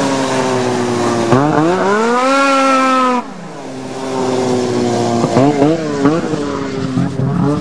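Snowmobile engine revving hard: it climbs in pitch, falls away suddenly a little past the middle, then picks up again and wavers up and down with the throttle.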